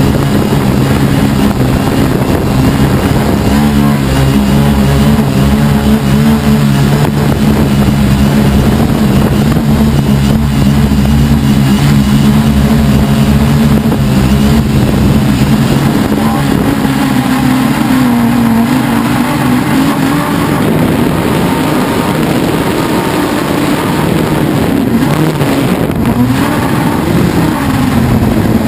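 Helimax Form 500 quadcopter's electric motors and propellers humming steadily in flight, heard close up from the camera on its frame. The pitch wavers up and down in the second half.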